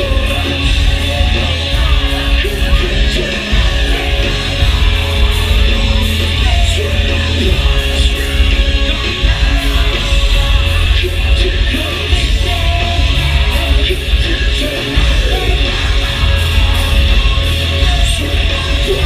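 Heavy metal band playing live, with yelled vocals over loud distorted guitars, bass and drums filling a large hall.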